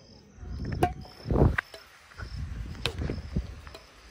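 Crickets chirping steadily, about two short high chirps a second, with a few sharp clicks and low rumbling bumps over them, the loudest bump about one and a half seconds in.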